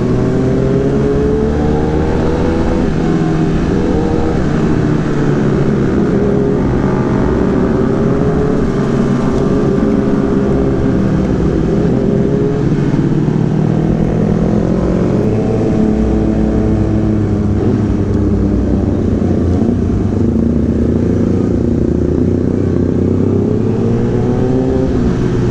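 Kawasaki ZX-10R inline-four with an Arrow racing exhaust running under way, its pitch rising and falling several times as the throttle opens and closes, over steady wind noise.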